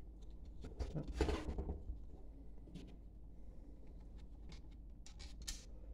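Quiet handling sounds from small hardware work: scattered light clicks as small nuts are threaded onto the screws of a cooling fan on a metal mounting plate, with a brief scrape about a second in.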